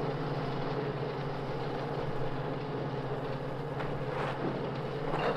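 Truck engine running steadily, with a few brief knocks in the last couple of seconds. The narrator takes it for the milkman's delivery truck.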